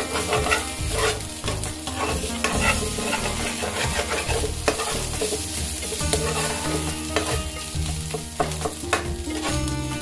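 Ginger paste sizzling as it fries in hot ghee in a pan, with a spoon stirring and scraping it at irregular moments to keep it from sticking.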